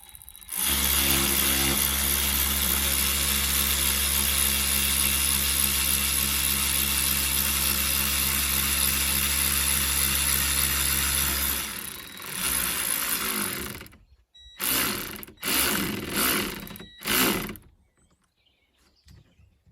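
Handheld electric power tool running steadily for about eleven seconds, then briefly again, then in four short bursts near the end, as a substitute bolt is worked into the wiper linkage.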